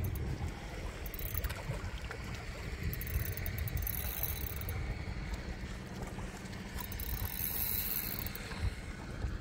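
Wind rumbling on the microphone aboard a boat at sea, with water washing against the hull and a brief hiss of spray twice.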